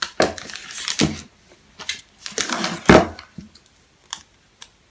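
Clear plastic protective film crinkling as it is handled and pulled at on an Apple TV 4's glossy casing, in two bursts, followed by a few light clicks near the end.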